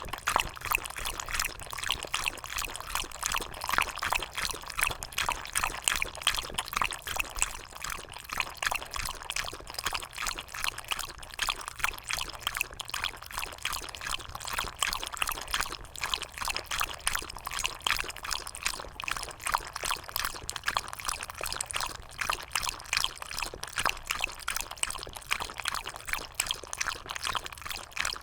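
Shiba Inu lapping water in quick, irregular laps, with splashing and trickling.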